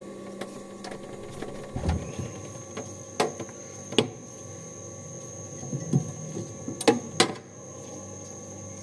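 A glass mug is handled on a refrigerator shelf and lifted out, giving a handful of short, sharp knocks and clinks, the clearest two close together about seven seconds in. A faint steady hum runs underneath.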